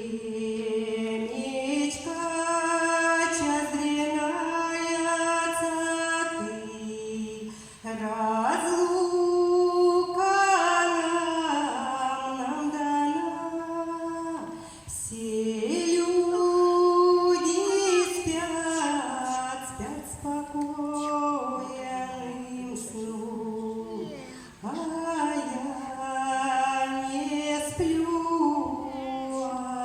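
Women's choir singing a Russian song in four long phrases, each several seconds long, with short breaks between them.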